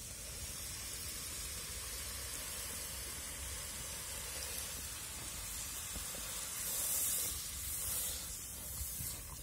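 Water poured into a pot of spice masala frying in hot oil, hissing and sizzling steadily as it hits. The hissing swells louder briefly about seven and eight seconds in as the mixture is stirred with a wooden spoon.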